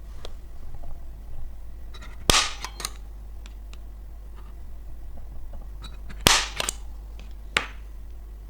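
Sharp knocks, as of a hammer striking the metal bracket parts: a loud blow about two seconds in, another about six seconds in and a lighter one shortly after. Each of the first two blows rings briefly and is followed by a couple of smaller knocks.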